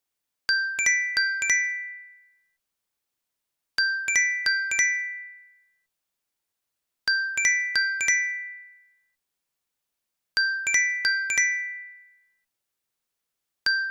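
Phone ringtone: a short phrase of four bell-like chime notes, each struck sharply and ringing out, repeating about every three seconds with no background noise.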